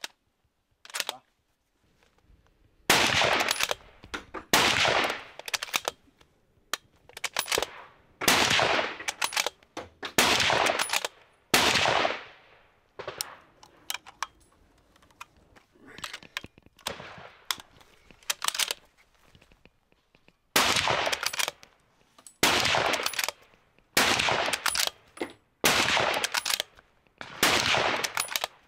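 Ten .30-06 rifle shots from a Sako 85 bolt-action rifle, fired rapidly, each echoing briefly, with lighter clicks of the bolt being worked between them. Five shots come in the first half at uneven spacing, then a pause of several seconds holding only small clicks, then five more about a second and a half apart near the end.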